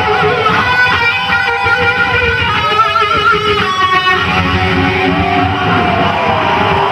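Electric guitar solo with wide string bends, quick runs of notes and a wavering held note about three seconds in.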